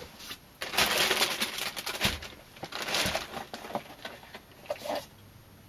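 Plastic parts bag being rummaged through for a small screw: a few seconds of crinkly rustling, then a few light clicks of small hardware being handled.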